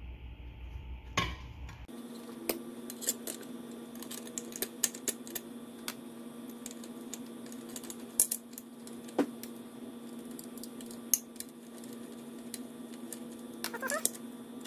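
Light metal clinks and taps as the top plate of a small outboard's recoil starter is seated on its housing and its screws are started by hand, with a quick string of clicks near the end. A steady low hum sits behind from about two seconds in.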